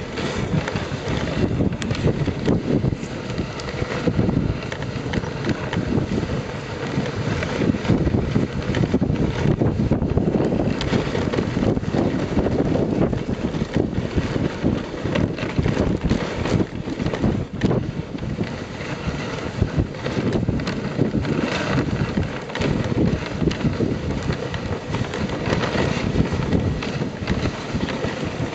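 Wooden dog sled sliding over snow: a continuous scraping hiss with irregular knocks and rattles as it runs over bumps, mixed with wind on the microphone.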